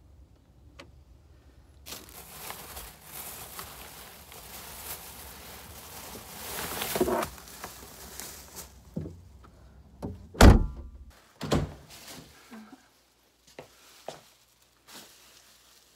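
Plastic grocery bags rustling as they are lifted out of a car's trunk. About ten seconds in comes a loud thunk, the loudest sound here, with a smaller one a second later, as the trunk lid is shut. Fainter bag rustles follow.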